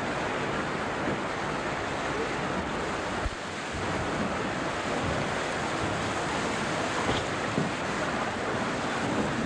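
Steady rush of river water pouring over a weir and through its rapids.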